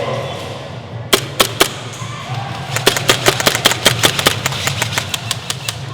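Airsoft guns firing: three sharp shots about a second in, then a rapid string of shots, about seven a second, for a second and a half, followed by scattered single shots.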